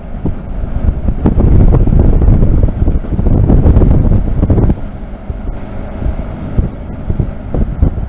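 Wind buffeting a helmet-mounted microphone while riding a motorcycle: a heavy, gusty low rumble that grows louder about a second in and eases off after about four and a half seconds.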